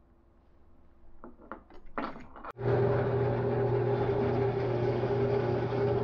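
Drill bits clinking and rattling as one is fitted into the drill press chuck, then a click and the drill press motor starts about two and a half seconds in and runs with a steady hum as the bit bores into a wooden knob held in a vise.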